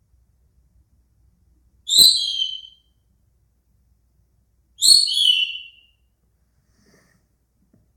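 Indian ringneck parakeet giving two shrill calls about three seconds apart, each under a second long and dropping a little in pitch at its tail.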